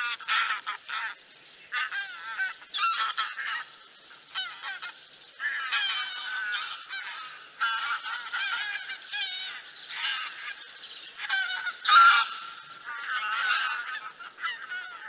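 A flock of wild geese, barnacle and greylag, calling: many overlapping honks in bursts with short lulls, the loudest burst about twelve seconds in.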